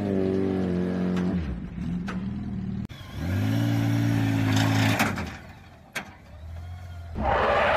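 Motorcycle engines running and revving as the bikes are ridden up an aluminium loading ramp into a pickup bed; the sound changes abruptly about three seconds in as a second bike takes over, with a few sharp clanks along the way. A louder noisy sound starts near the end.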